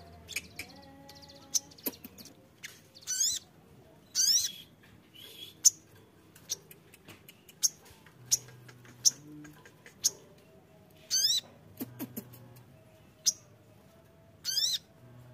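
A male olive-backed sunbird calling: scattered sharp, high single chips with four short, fast trilled phrases among them.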